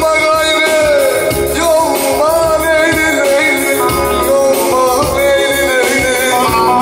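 Live Teke-region Turkish folk music (türkü) played loud on an electronic keyboard and a saz, with a wavering melody over a steady beat.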